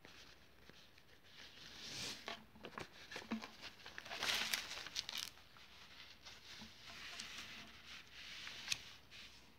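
Paper cover sheet of a diamond painting canvas rustling and crinkling as it is handled, lifted and folded back, with scattered small clicks and taps. The loudest rustle comes about four to five seconds in.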